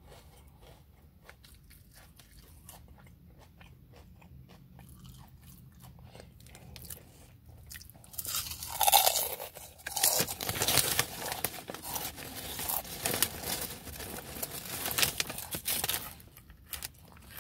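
Crunching and chewing of barbecue potato chips, faint at first. From about eight seconds in it turns loud, with the foil-lined chip bag crinkling as a hand digs in for more.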